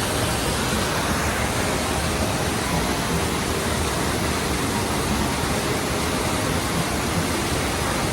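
Waterfall rushing, a steady, even roar of falling water that masks everything else.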